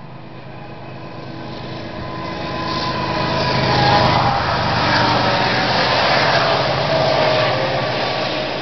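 Norfolk Southern diesel locomotives, led by GE ES44AC 8114, running under power as they approach and pass beneath an overpass. The engine sound grows louder to its peak about four seconds in, as the locomotives pass below, then eases slightly.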